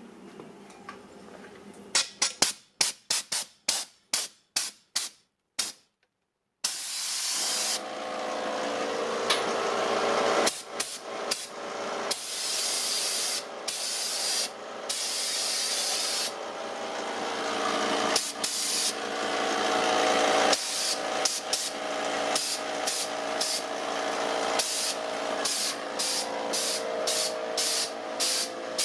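Electric air compressor starting up and running, its motor and pump filling the tank, the sound slowly growing louder and broken by frequent abrupt gaps. Before it starts, a quick string of short sharp sounds, then a moment of silence.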